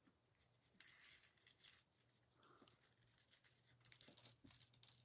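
Very faint rustling and scratching of a sheer ribbon and card stock being handled as the ribbon is tied into a small loop, in short spells about a second in and again near the end, over a faint low hum.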